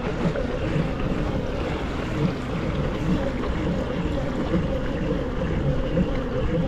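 A boat motor running steadily under way, with water rushing and splashing in the wake and wind buffeting the microphone.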